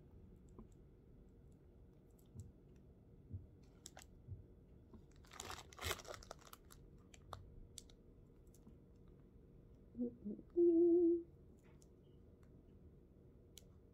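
Quiet handling noise with a few light taps and a crinkly rustle about six seconds in. Near the end comes a short hummed "mm-hmm" from a woman.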